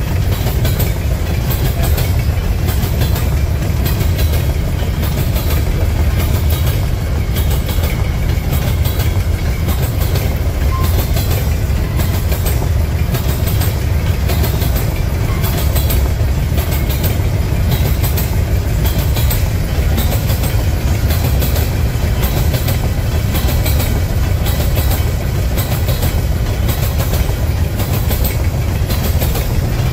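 A long freight train of empty potash covered hopper cars rolling past close by: a steady heavy rumble with a quick rhythm of wheels clacking over the rails.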